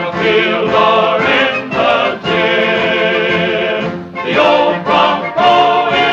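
Film title music: a choir singing sustained phrases over an orchestra.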